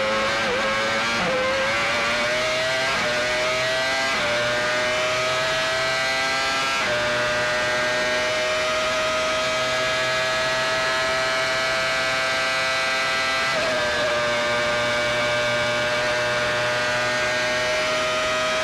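Benetton-Renault Formula One car's 3-litre V10 at high revs, heard from the onboard camera. It changes up twice in the first seven seconds with short steps in pitch, then holds a steady high note under full throttle, with one brief dip about two-thirds of the way through.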